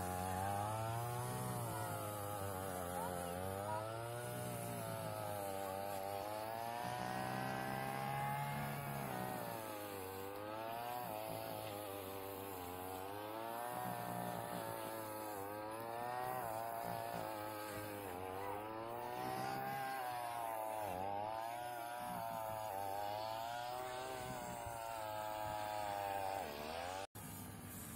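Petrol brush cutter engine running, its revs rising and falling every few seconds as it cuts grass. It stops suddenly near the end.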